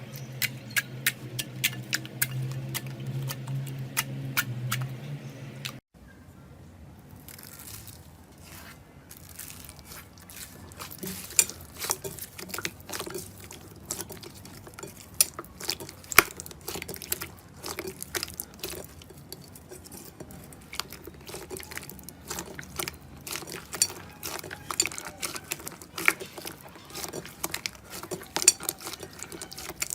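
Slime being squeezed and pressed by hand, making sticky clicks and pops. For the first six seconds a low hum sits under the clicks; after a cut about six seconds in, the popping and crackling are denser and less regular.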